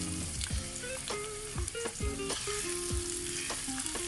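Chopped onion sizzling as it fries in hot oil in a stainless steel pan. A wooden spatula stirs it, knocking against the pan several times.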